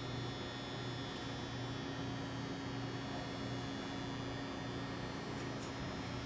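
Steady low hum with a faint even hiss: the room tone of a large industrial hangar's running equipment.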